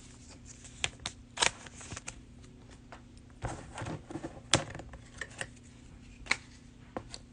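Trading cards being handled and flipped through one at a time: a scatter of soft, irregular clicks and slides, a few of them sharper than the rest.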